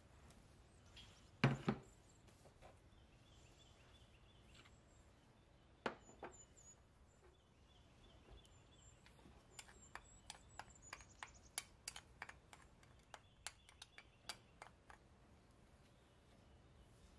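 Small handling sounds at a glass baking dish: a double knock about a second and a half in and another near six seconds, as green chili peppers are set on the rice. Then, from about ten seconds in, a run of quick, light ticks as a spice mix is shaken onto the rice from a small glass bowl.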